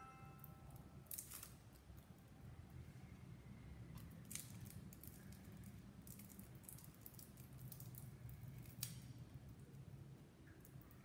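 Faint crackles and a few sharp clicks of papery garlic skins being peeled off by hand.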